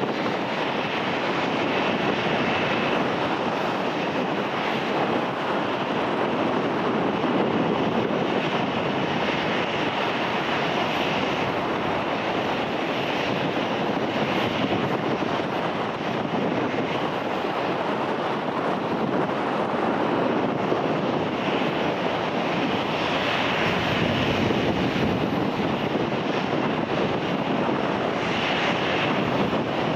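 Boeing 737-800's CFM56-7B turbofan engines running at low taxi thrust: a steady jet noise that swells slightly now and then.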